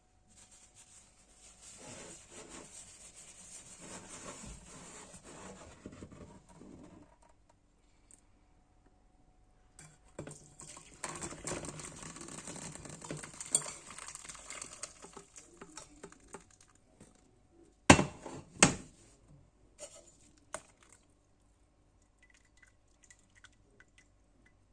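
A cooking pot and utensils being handled with liquid, in two stretches of several seconds each, then two sharp knocks a little under a second apart.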